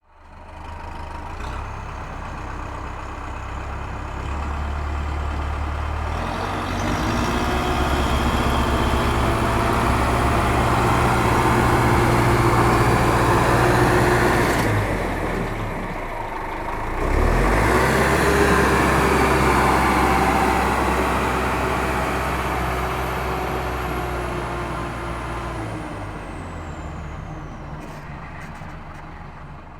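Tractor engine as the tractor drives back and forth. It grows louder as it comes closer, drops away briefly about halfway through as it changes direction, then comes back loud and fades as it moves off.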